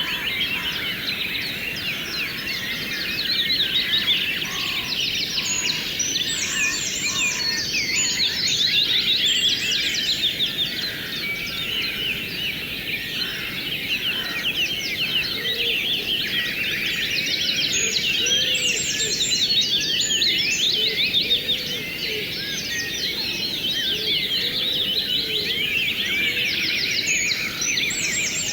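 A dense chorus of many birds chirping and trilling rapidly and without pause, over a steady rush of flowing river water.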